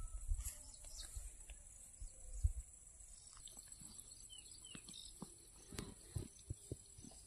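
Faint rural outdoor ambience: a steady high-pitched drone, a few short bird chirps and scattered soft knocks.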